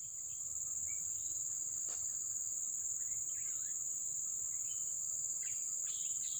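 Steady, shrill chorus of forest insects, a constant high-pitched buzz with no break. There are a few faint short chirps, and one faint click about two seconds in.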